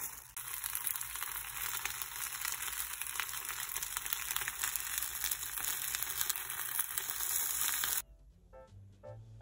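Napa cabbage leaves frying in a pan, a steady sizzle with fine crackling. It cuts off suddenly about eight seconds in, and quiet jazzy background music begins.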